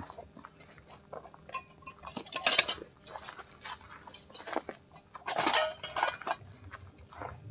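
Camping gear being unloaded from a car by hand: irregular knocks, clatter and rustling as bags and items are pulled out and set down, loudest about five and a half seconds in.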